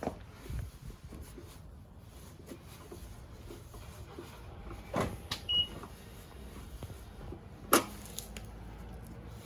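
A few scattered knocks and clacks, the loudest about three-quarters of the way through, over a faint low background hum.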